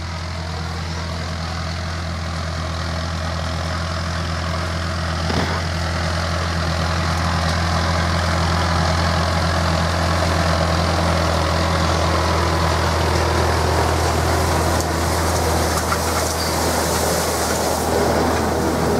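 John Deere 6430 tractor's diesel engine running steadily while pulling a Pöttinger rotary hay rake, growing gradually louder as the tractor approaches.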